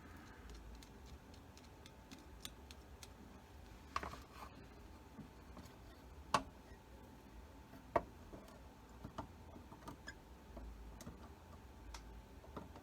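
Scattered light clicks and taps of small-parts handwork on a bench, with three louder sharp knocks about four, six and eight seconds in, over a low hum.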